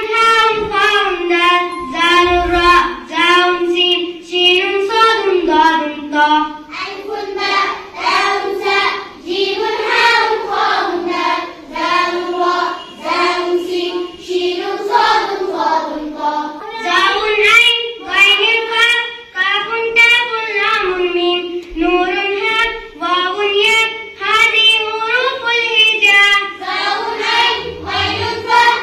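A group of children chanting the Arabic alphabet letter names together to a repeating sing-song tune, in a steady rhythm of short syllables.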